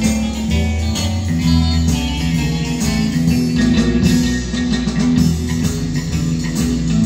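Guitar music with steady bass notes, played back from a cassette on a 1981 Marantz SD 3510 two-head cassette deck.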